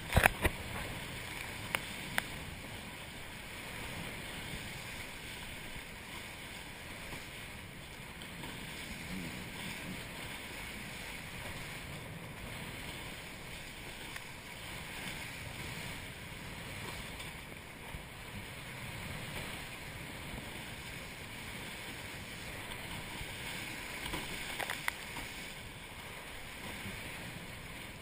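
A Hobie Cat catamaran sailing through chop: a steady rush of water along the hulls mixed with wind on the microphone. A few sharp slaps of water against the boat come near the start and again near the end.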